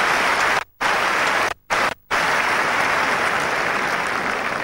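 Tennis crowd applauding steadily after a game is won. The sound cuts out completely for a split second three times, about a second in and twice near the two-second mark.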